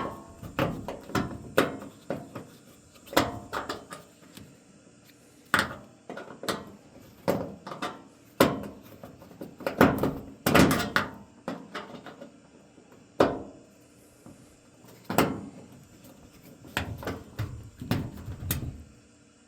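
Irregular knocks, clunks and scrapes as a furnace's blower compartment is opened up and its parts handled, a couple of dozen separate hits spread across the stretch with short pauses between them.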